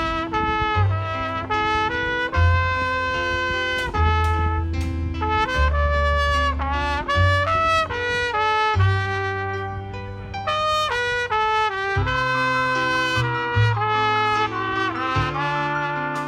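A trumpet plays a slow melody of held notes, some sliding into the next, with low bass notes sounding underneath. The playing is heard unamplified, with no added reverb.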